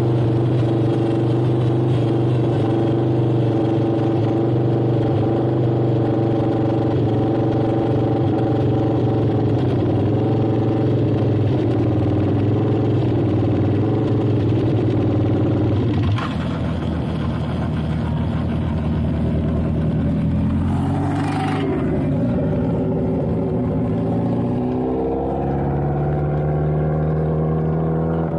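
A vehicle engine running at a steady speed. It drops off about sixteen seconds in, with a brief whoosh a few seconds later, then its revs climb again near the end.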